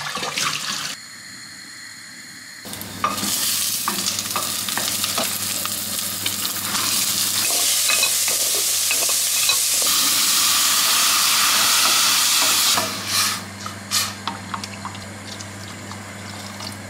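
Diced bacon and onion sizzling in oil in a stainless steel pot while being stirred with a wooden spoon, with small scrapes and knocks of the spoon. The sizzle starts about three seconds in, is loudest in the middle, and drops away about thirteen seconds in, leaving scattered pot knocks.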